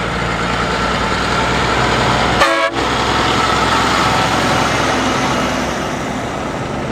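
Semi-trailer trucks driving past at highway speed, a steady engine and tyre roar, with one short horn blast about two and a half seconds in.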